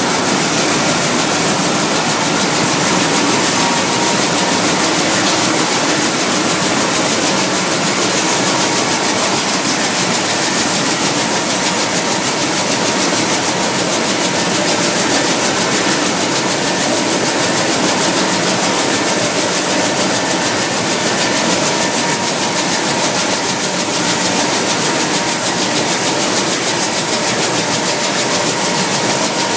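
Talay TSKF-7000 nut roasting machine running, a loud, steady, even mechanical noise that holds unchanged throughout.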